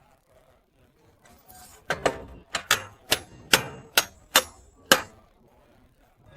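Hammer striking metal, about nine sharp knocks in quick succession, roughly two or three a second, starting about two seconds in.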